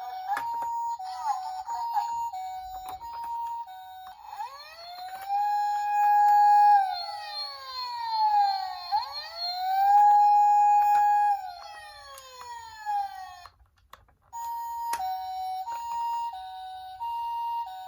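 Japanese-style ambulance siren alternating between a high and a low tone ("pee-po"), which gives way about four seconds in to a police-car wail that rises, holds and falls twice. After a short break, the two-tone ambulance siren starts again.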